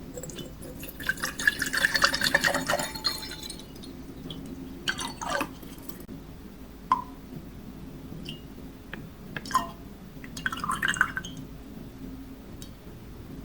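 Clinking of glass or dishes and splashing liquid, in two busy bursts about a second in and about ten seconds in, with scattered single clicks and a short ring between them, over a steady low hum.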